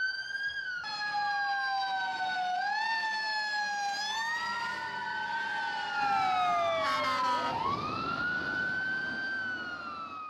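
Emergency vehicle sirens wailing, two sirens at once, each sweeping up and down in pitch out of step with the other, with a brief harsher burst about seven seconds in. The sirens come from a fire engine and police cars responding with lights on.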